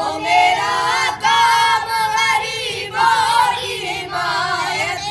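Boys' voices singing a dua (prayer poem) together without accompaniment, in long held, gliding notes.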